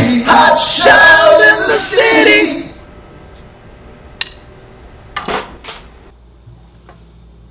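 A rock band of electric guitar, bass guitar and drums hitting the last chords of the song with cymbal crashes, stopping abruptly about two and a half seconds in. After that, only faint room noise with a few small clicks and knocks.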